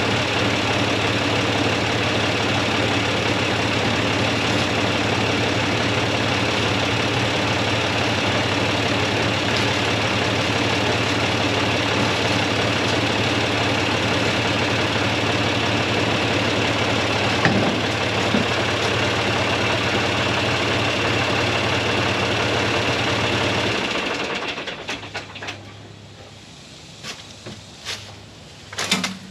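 Engine running steadily at one constant speed, then shut off about 24 seconds in; a few clicks and knocks follow as it falls quiet.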